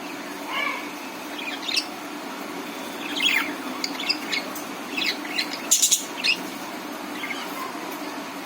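Budgerigars chirping and warbling in short, scattered calls, with a louder, harsh squawk about six seconds in.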